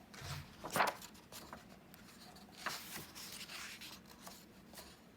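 Faint paper rustling and light taps as a picture book is handled and its pages turned, with a soft thump near the start.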